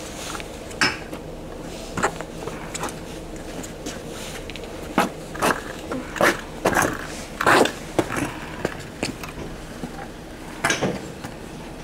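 Stunt scooter on homemade beech wheels with no bearings, moved over icy asphalt: irregular scrapes and clacks every second or so as the wooden wheels drag and knock.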